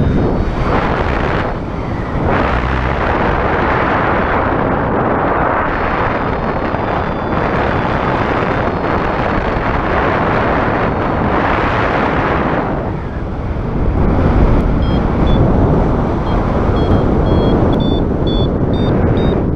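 Strong wind buffeting the microphone in loud, rushing gusts that swell and ease every few seconds.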